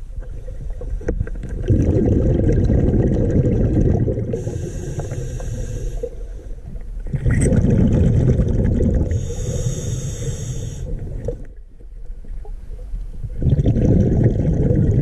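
Scuba diver breathing through a regulator underwater: exhaled bubbles rumbling in three long swells, with the hiss of the regulator on each inhale between them.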